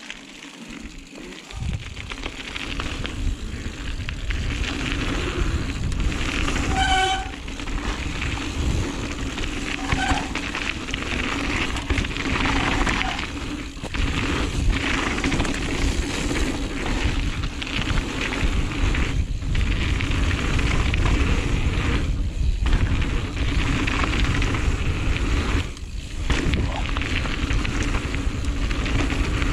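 Giant Reign mountain bike riding down a flow trail: steady rush of wind on the camera's microphone with tyre and frame rattle over the dirt. A short high squeal comes about seven seconds in, and the noise drops briefly a few times later on.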